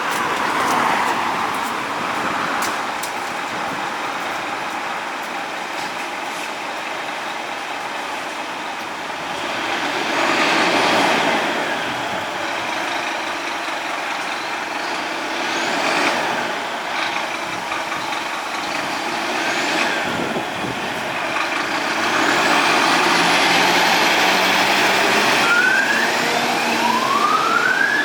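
Fire engine's diesel running as the truck pulls out, its level swelling and easing. Near the end its siren starts, a wail rising in pitch.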